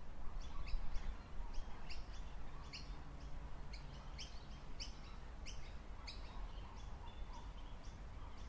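Small birds chirping: short, high chirps repeated two or three times a second, over steady low background noise.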